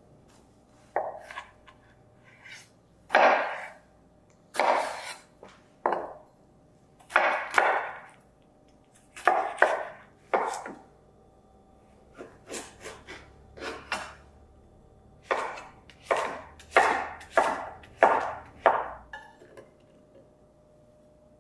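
Kitchen knife cutting through zucchini on a wooden cutting board: a string of separate cutting strokes, irregularly spaced, coming closer together near the end.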